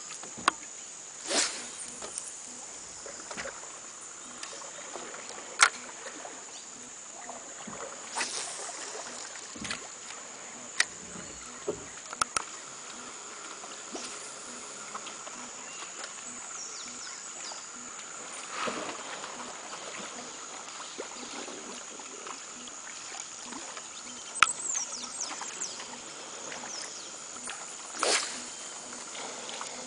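Outdoor river ambience heard from a small boat: a steady high-pitched drone of wild animals, with scattered knocks and a few sloshes, and short falling chirps about halfway through and again near the end.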